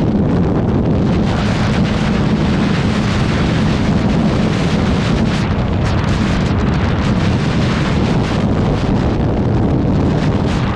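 Loud, steady wind buffeting on the microphone at riding speed, over the drone of a 2019 Suzuki GSX-R750's inline-four engine.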